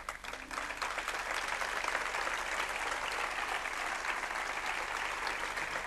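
Audience applauding: many hands clapping in a dense, even patter that builds quickly at the start and then holds steady.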